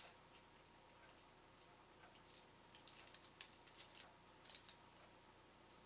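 Near silence with faint clicks and taps of 3D-printed plastic robot parts being handled as a leg is fitted, bunched between about three and five seconds in.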